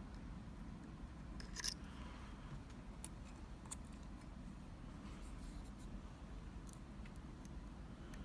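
Faint metallic scraping and small clicks of a lock pick working the pins inside a Sargent Keso mortise cylinder, with one sharper click about one and a half seconds in, over a low steady hum.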